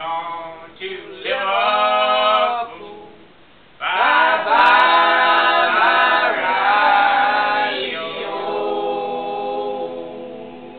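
Unaccompanied group singing with long held notes. One voice holds a note early on; from about four seconds in, louder and fuller singing carries the rest of the song phrase.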